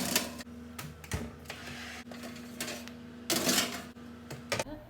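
Clicks and short clatters of an oven's controls being set to a new temperature, over a steady low hum.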